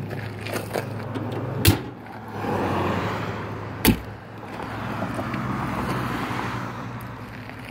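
Two sharp metal clicks about two seconds apart, the steel door of a cabinet smoker being shut and latched, over road traffic that swells and fades twice as vehicles pass.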